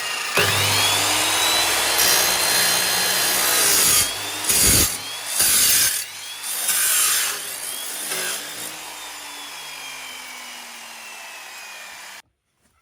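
Angle grinder working the exhaust pipe: the motor whines up to speed, cuts or grinds metal in several louder bursts, then slowly winds down. The sound cuts off abruptly near the end.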